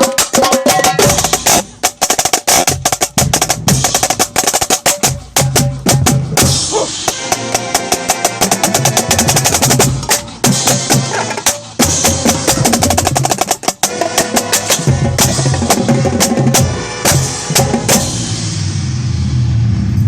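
Drum corps snare line playing a full-show run-through, heard close up: rapid snare strokes and rolls over the corps' sustained horn chords and low parts.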